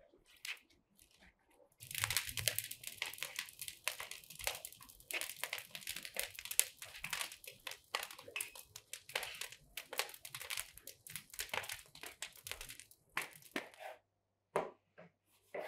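Dry brushwood burning in a brick tandoor being fired for bread, a dense fast crackling that starts about two seconds in and thins to a few scattered crackles near the end.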